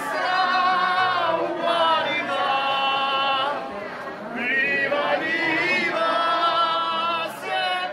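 A group of men and women singing together without accompaniment, holding long notes, with a brief pause about four seconds in.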